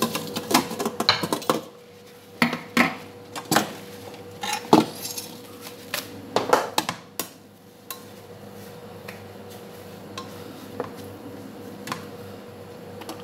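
Stainless steel pot, lid and metal utensils clinking and knocking against each other and the counter: a busy run of sharp clanks over the first several seconds, then only a few single clinks. A faint steady hum sits underneath.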